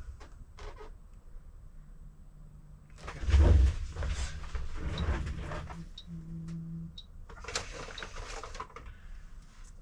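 Objects being handled and set down on a workbench: a few light clicks, then about three seconds in a heavy thump followed by several seconds of knocking, scraping and clatter.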